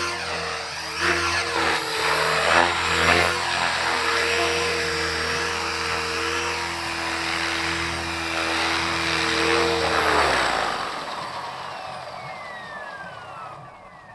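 T-Rex 500 RC helicopter running close by, its rotor and motor giving a steady hum and whine. About ten seconds in the power drops, and the whine winds down with a falling pitch as the rotor spools down after landing.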